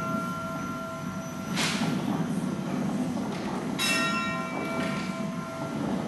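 A bell ringing out and fading, then struck again about four seconds in, its ring holding several clear tones. The bell sounds over a low steady rumble, with a brief rush of noise between the strikes.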